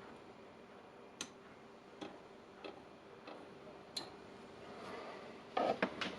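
Light, isolated clicks and taps of small tools and parts being handled, about one every half second to second, over a faint steady hum; denser, louder clattering starts a little over five seconds in.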